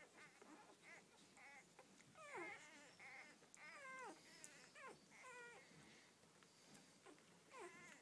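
Newborn Rhodesian ridgeback puppies crying: a string of short, high cries, many of them sliding down in pitch, coming every half second or so with small gaps.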